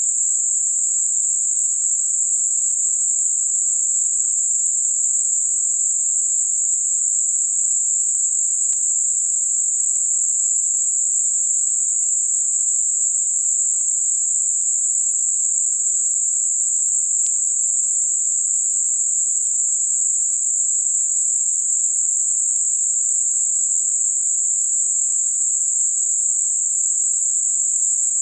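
Steady, high-pitched synthetic hiss: Gaussian narrowband noise centred on 7.5 kHz, rolling off gently between about 5.5 and 9.5 kHz, generated for masking high-frequency tinnitus.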